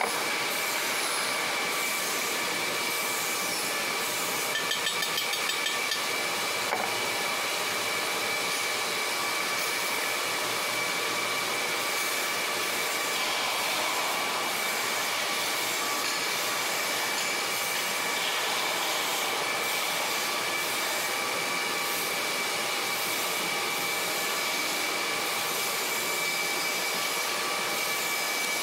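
A machine running steadily in the workshop: an even rushing noise with a constant high-pitched whine, and a few light clicks about five seconds in.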